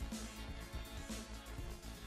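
Background music with a steady beat over a deep bass.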